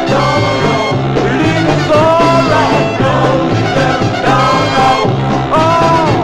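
1960s male-group soul record: voices singing held, bending notes over a band with a walking bass and a steady beat.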